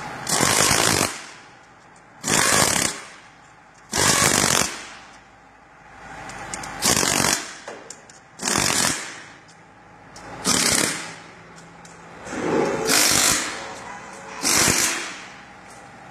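Power tool run in short bursts of about a second each, eight times, with pauses of one to three seconds between them.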